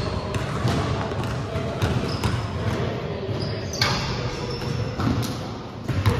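A basketball being dribbled on a hardwood gym floor, the bounces ringing in the large hall, with short sneaker squeaks. There is a louder knock about four seconds in.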